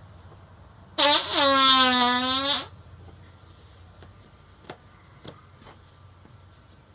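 A long, loud, squeaky fart, one held pitched note of under two seconds about a second in, followed by a few faint clicks.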